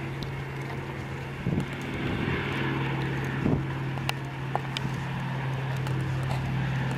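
Douglas C-47 twin radial piston engines droning steadily as the transport flies low on its landing approach, gear down.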